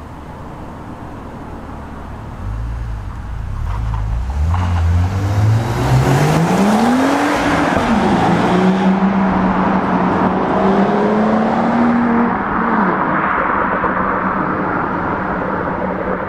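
BMW M135i's turbocharged straight-six accelerating through a concrete underpass, its exhaust echoing off the walls. The revs climb, drop at a gear change about halfway through, then hold steady and fade slightly as the car pulls away.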